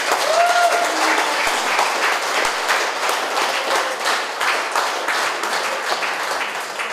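A crowd of wedding guests applauding with dense, steady clapping that eases slightly near the end.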